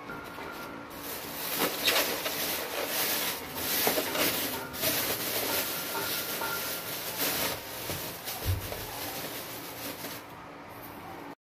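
Thin plastic bag rustling and crinkling in irregular bursts as it is handled and its handles are tied, with a dull low thump about eight and a half seconds in.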